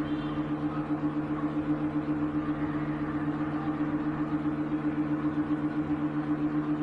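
A steady low electrical hum made of a few fixed tones, its loudness pulsing evenly several times a second.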